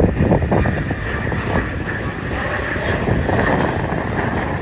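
Jet engines of a departing Southwest Airlines Boeing 737 climbing out: a steady rumble with a steady high whine over it.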